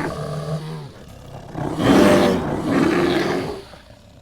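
A large animal roaring: one roar trails off just after the start, then a louder, longer roar rises about two seconds in and fades away near the end.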